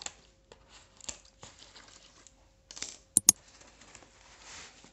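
A cardboard box being cut and torn open with scissors: scattered scrapes, snips and rustling of cardboard and plastic. Just after three seconds in come two sharp mouse-click sound effects in quick succession, the loudest sounds here, from an on-screen like-button animation.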